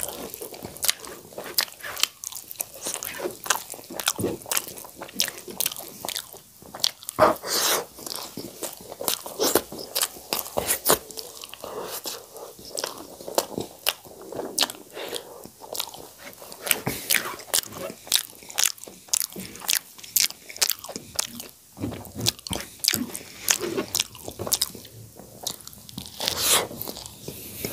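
Close-miked chewing of sag bhat, leafy greens and rice eaten by hand, with many sharp wet mouth clicks, lip smacks and crunches in quick irregular succession.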